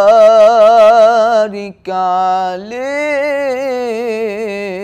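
A teenage boy's solo voice chanting an Islamic ibtihal, drawing out long ornamented notes with a wavering vibrato. There is a short breath about one and a half seconds in, then the voice comes back with a rising phrase and settles on a held note.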